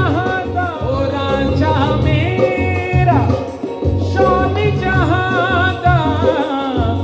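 Male vocalist singing a Punjabi Sufi folk song live into a microphone, with ornamented, wavering melismatic phrases and a long held note that slides down about three seconds in. Steady instrumental backing sits low beneath the voice.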